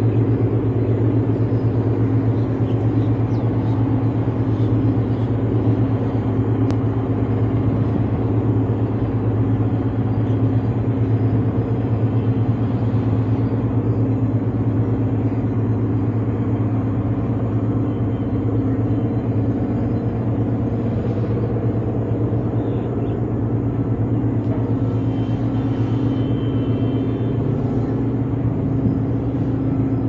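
A large engine running steadily, a continuous low droning hum that holds one pitch throughout.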